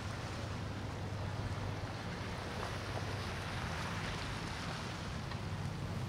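Large motor yacht's engines running with a steady low drone as it cruises slowly past, over an even wash of water and wind noise.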